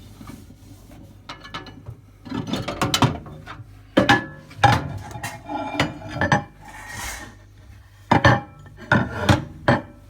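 Hard objects being handled inside a microwave: irregular rubbing and scraping with several sharp knocks and clatters, the loudest knocks in the second half. A short hiss about seven seconds in.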